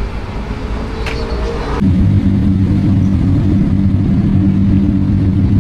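Race car engine noise: a rumble with a rising engine note, then, about two seconds in, a loud, steady, low engine drone starts suddenly and holds.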